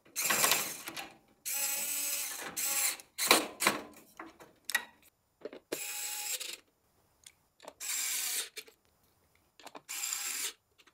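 Larger Xiaomi cordless electric screwdriver's motor whirring in short bursts, about seven of them, as it drives screws in.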